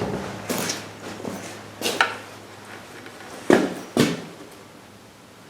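Hand tools and parts being handled while a fuel hose is worked off a small-engine carburetor: about four separate sharp clicks and knocks, the loudest two near the middle, over a faint steady low hum.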